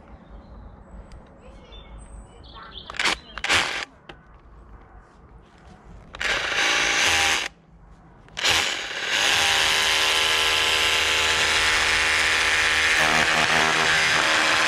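Power drill running in short bursts, then held on steadily for about six seconds, drilling into the wall for plastic wall plugs.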